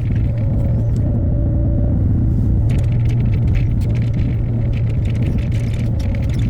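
Hyundai HX60A excavator's diesel engine running steadily, with scattered short clicks and rattles over it, thickest from about three to four seconds in.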